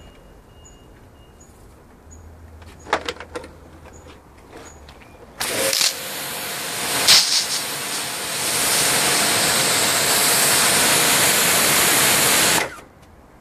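Kärcher K5.55M electric pressure washer. After a few light clicks, its spray starts about five seconds in as a loud, steady hiss of water from a wide fan nozzle. The hiss cuts off suddenly near the end.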